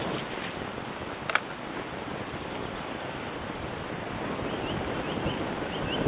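Steady rushing noise of wind on the microphone mixed with brushing through wet spruce branches and grass while moving fast on foot, with one sharp knock about a second in. A few faint, short high chirps come near the end.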